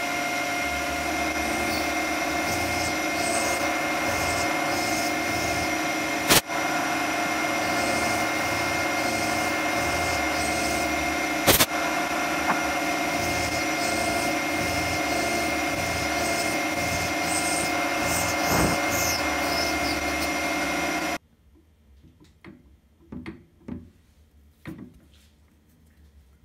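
Benchtop milling machine running steadily with a whine, its end mill cutting a mild steel (ST37) workpiece, with two sharp knocks partway through. The sound stops abruptly about 21 seconds in, leaving only a few faint ticks and taps.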